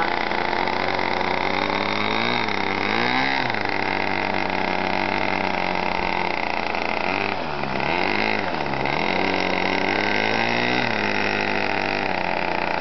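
Model airplane's .40-size glow engine running steadily on the ground. Its pitch dips and swings back up as the throttle is worked: once about three seconds in, twice around eight seconds in, and briefly near eleven seconds.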